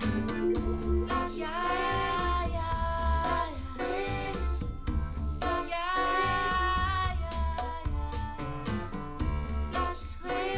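Female-vocal pop song recording: a woman's voice sings two long held notes over a pulsing bass line with guitar.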